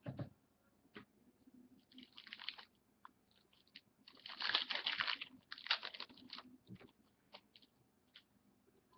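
Trading cards and their packaging being handled: bursts of dry rustling and crinkling, the longest about four to five seconds in, with scattered light clicks and taps.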